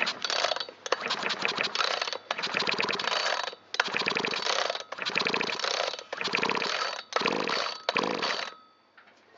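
Shindaiwa T272X two-stroke trimmer engine, freshly rebuilt with a new piston, being pulled over by hand with its recoil starter: about eight pulls, each a short burst of rapid clattering and ratcheting, stopping shortly before the end. The engine does not fire, as the intake block and carburetor are not yet fitted.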